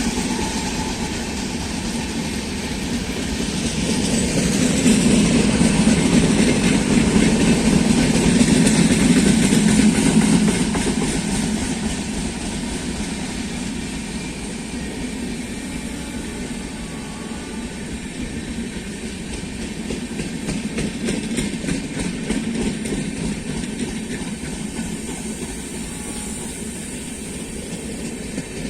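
Passenger express train rolling past on the track, its coaches' wheels clattering over the rail joints. The noise swells to its loudest about five to ten seconds in, then settles into a steadier, lower rumble.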